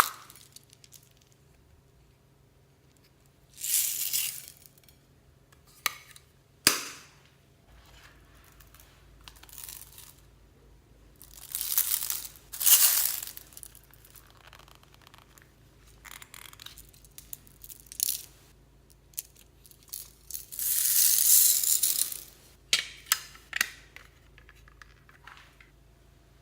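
Clear slime mixed with beads and floam being squeezed and worked by hand: irregular bursts of crunching and crackling, with sharp pops and clicks between them.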